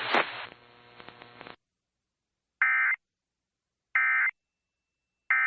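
Emergency Alert System end-of-message tones: three short, buzzy bursts of SAME digital data, each about a third of a second long and about a second and a half apart, signalling that the tornado warning broadcast is over.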